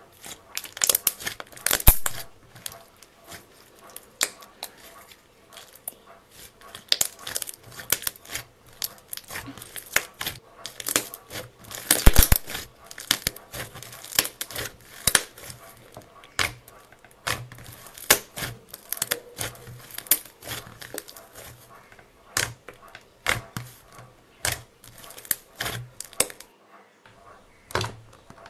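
Slime being stretched, folded and squeezed by hand: a dense, irregular run of sticky crackles and sharp pops, with a loud cluster about twelve seconds in.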